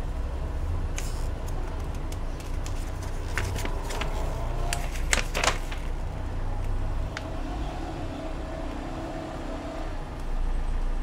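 A paper instruction leaflet rustling and crackling as it is unfolded by hand, with a quick run of sharp crinkles in the middle, over a steady low rumble.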